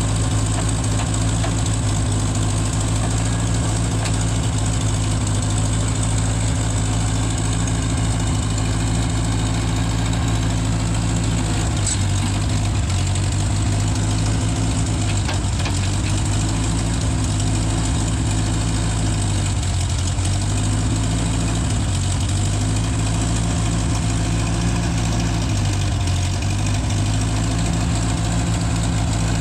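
Gehl Hydracat 4400 skid steer's engine idling steadily. About halfway through, its note starts to sag and recover again and again.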